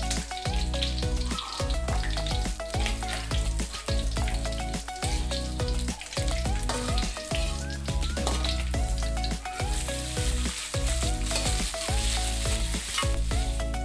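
Hot oil sizzling in an aluminium wok while a spatula stirs, first as fried mackerel tuna is lifted out and then as chilies and tomatoes fry. The sizzle grows louder about ten seconds in. Background music with a steady beat plays over it.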